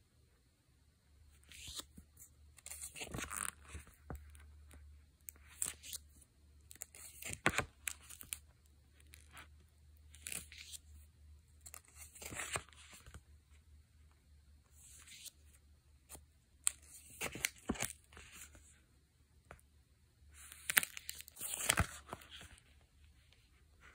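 Clear plastic sticker sheets crinkling and rustling as they are handled and flipped through, in short bursts every second or two, loudest near the end.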